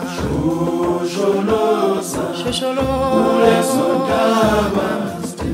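Background music: an a cappella vocal group singing.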